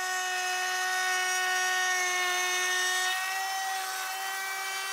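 Makita cordless trim router with a 1/4 inch straight bit running under load as it is pushed along a plywood guide. It is cutting a test dado and trimming the guide's 1/4 inch plywood edge to the bit. A steady high whine whose pitch dips slightly about three seconds in.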